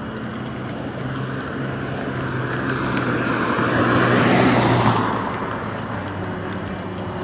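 A road vehicle passing by, building to its loudest about four and a half seconds in and then fading away.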